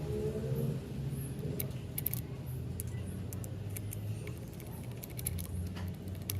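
Light metallic clicks and jingles of a padlock and key being handled, over a low steady hum. The clicks come in small clusters, about two seconds in and again near the end.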